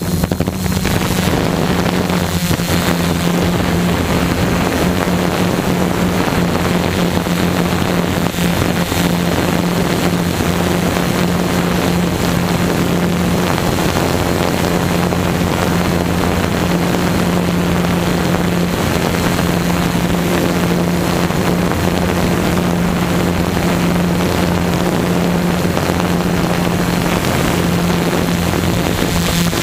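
Tarot multirotor drone's electric motors and propellers running in flight, a steady hum heard from the camera on the drone itself, with wind rushing over the microphone.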